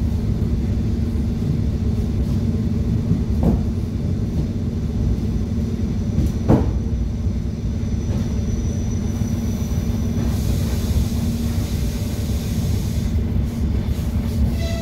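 ED9M electric train running slowly, heard inside the carriage: a steady low rumble of wheels on rail with a constant hum, and two sharp clicks from the wheels crossing joints or points. A hiss comes in about ten seconds in and lasts a few seconds.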